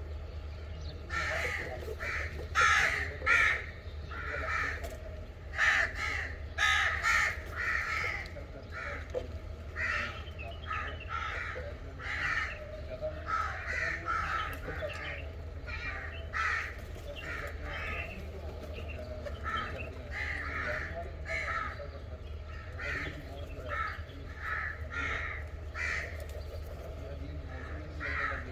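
Crows cawing repeatedly, several short harsh calls a few seconds apart and often overlapping, over a steady low hum.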